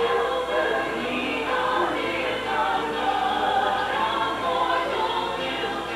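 A choir or group of voices singing a slow hymn with sustained held notes.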